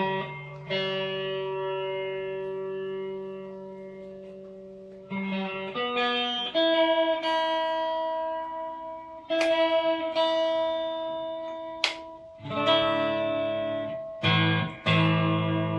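Fender Player Series Stratocaster electric guitar, picked notes and chords each left to ring out with long sustain. It is fresh out of the box and only roughly in tune.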